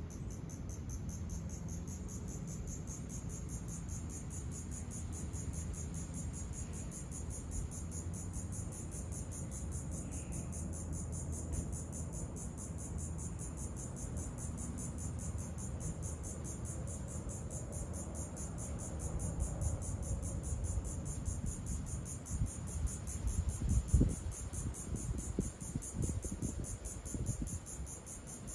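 Insects trilling steadily in a high-pitched, rapidly pulsing drone, over a low rumble. A few short low thumps come near the end.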